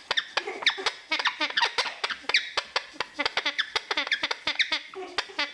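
Maximilian's pionus parrot mimicking a duck: a fast run of short, falling quack-like calls, several a second, with sharp clicks between them.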